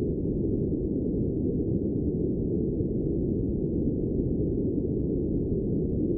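Steady, dull low rumbling noise with no distinct tones, beats or clicks, unchanging throughout.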